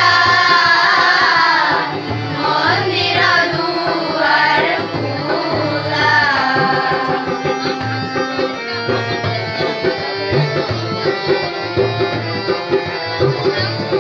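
Children's choir singing a song in unison to harmonium and tabla. About halfway through the voices stop and the harmonium and tabla carry on alone in an instrumental interlude with a steady drum rhythm.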